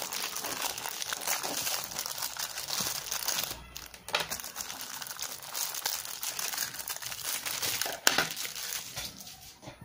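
Packaging crinkling and rustling as the drone's charger is unwrapped and handled, with a sharp knock about eight seconds in.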